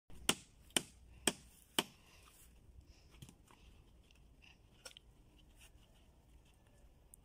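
Four sharp knocks on the wooden formwork of a concrete post, about half a second apart, as the form boards are fixed in place, followed by faint scattered clicks.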